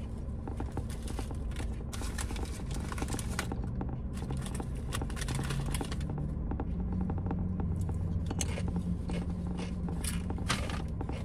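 Close-miked eating: chewing and crunching on a sandwich and Doritos tortilla chips, with the crackle of the paper sub wrapper and chip bag as a hand reaches in, in irregular clicks and crackles over a steady low hum.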